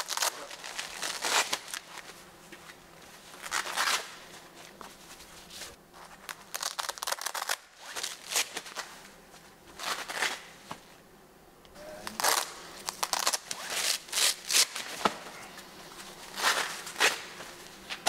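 Nylon straps, buckles and hook-and-loop panels of a bulletproof backpack plate carrier being handled as it is pulled on and converted into a vest. The rustling and ripping comes in short bursts every second or two.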